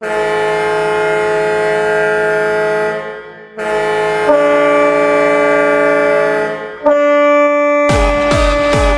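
Ice hockey goal horn sounding three long blasts of about three seconds each, a chord of several steady tones. About eight seconds in, a goal song with a heavy electronic dance beat starts under the third blast.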